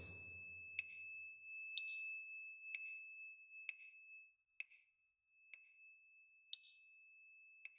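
A faint steady high-pitched tone with a soft tick about once a second, like a clock ticking.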